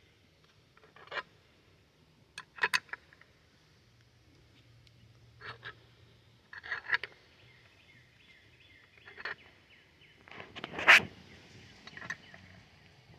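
Irregular knocks and clicks, several short clusters spread over the span, the loudest about eleven seconds in.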